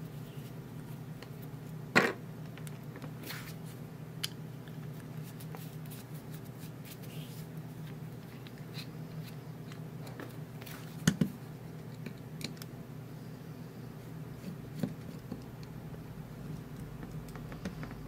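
Small metallic clicks and scrapes of a screwdriver and fingers working on a brass mortise lock cylinder as its cam screws are taken out. There is a sharp click about two seconds in and a double click around eleven seconds, over a steady low hum.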